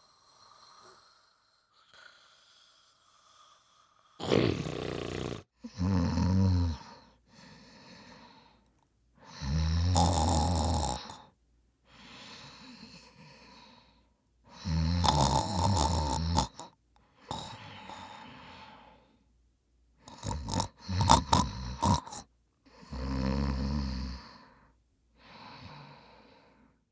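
Loud snoring: about six rattling inhaled snores, one every four to five seconds, each followed by a softer breathy exhale. One snore near the end breaks into short choppy snorts.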